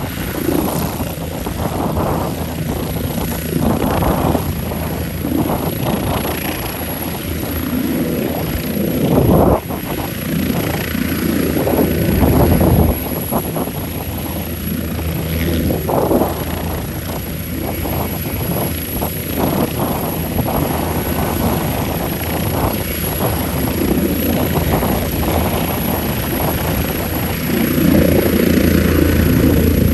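Air ambulance helicopter hovering low and taking off, its rotor and turbine engines running steadily, the loudness surging now and then.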